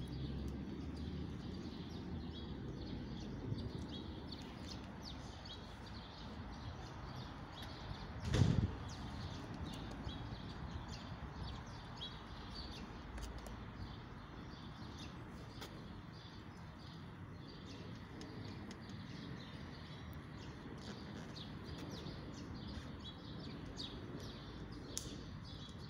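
Quiet outdoor ambience with a low steady background and faint birds chirping, broken by one brief low thump about eight seconds in.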